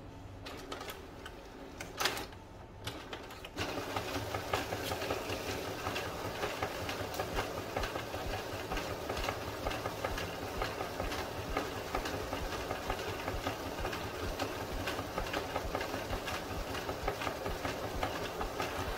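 Epson EcoTank ET-8550 printer's internal mechanism running during its initial ink charge, pulling ink into the printhead: a fast, rhythmic mechanical whirring and ticking. It starts quieter, with a click about two seconds in, and turns louder and busier at about three and a half seconds.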